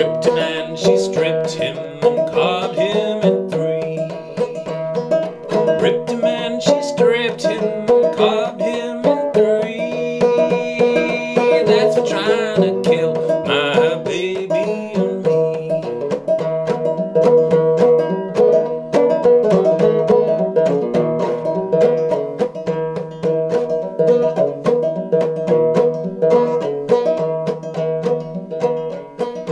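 Old flush-fret Buckbee banjo with a new calfskin head and Nylgut strings, played clawhammer in sawmill tuning: a steady, rapid stream of plucked and brushed notes.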